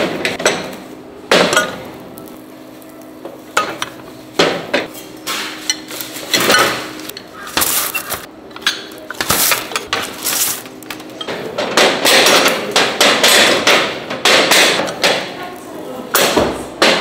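Repeated irregular clanks and knocks of heavy metal four-cup rice-cake moulds: the moulds are flipped, their lids opened and shut on the gas burners, and one is knocked against a tray to turn out the baked glutinous rice cakes. The knocks come thickest near the end.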